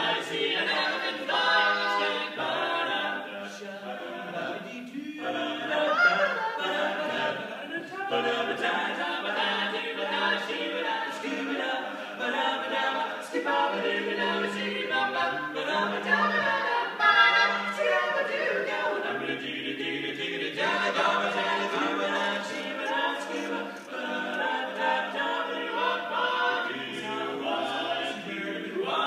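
Male barbershop quartet singing a cappella in close four-part harmony, the bass holding low notes under the upper voices.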